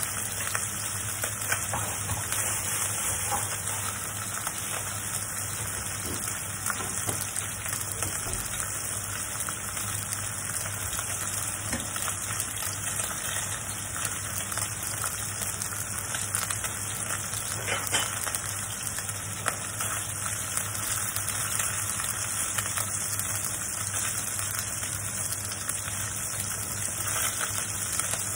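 Pork pieces sizzling as they fry in oil in a stainless-steel wok, with a few light clicks of chopsticks against the pan as the pieces are turned. A steady low hum runs underneath.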